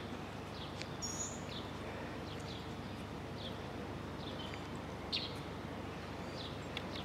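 Outdoor ambience: a steady low background hum with scattered short, high bird chirps throughout.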